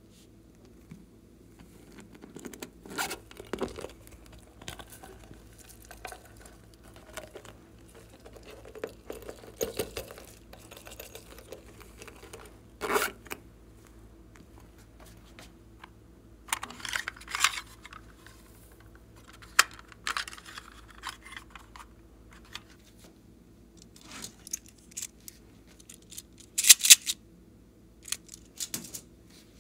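Hands handling a blue cat-shaped case: scraping, rubbing and clicking in irregular bursts, with a short, sharp crackle near the end that is the loudest sound.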